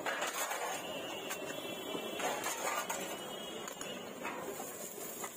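Metal cooking utensils clinking and scraping against steel pots and the iron dosa griddle, many short clinks over a steady background din.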